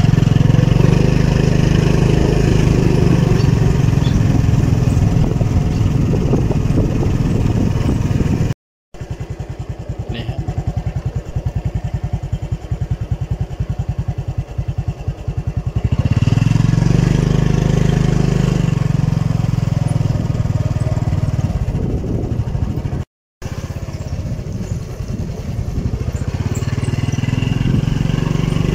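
Motorcycle engine running as it rides along, a steady low hum that grows louder and softer with the throttle. It drops to silence briefly twice, about a third of the way in and again about three-quarters through, and runs quieter with an even pulsing for several seconds after the first break.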